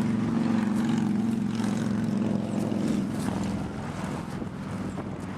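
Aircraft engine running with a steady, pitched hum that grows quieter after about three seconds.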